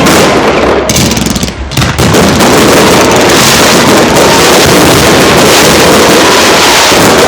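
Fireworks barrage: separate loud bangs in the first two seconds, then shells bursting so thickly that they run together into one continuous loud din.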